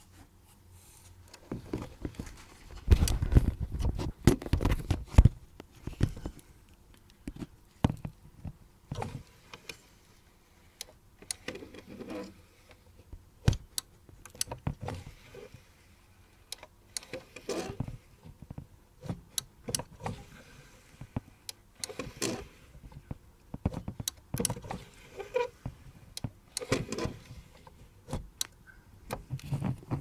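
Irregular clicks and metal knocks as the hinge linkage and micro switches of a steel helmet faceplate are worked by hand, with heavier knocks a few seconds in. The micro switches are limit switches that stop the faceplate motor at the ends of its travel.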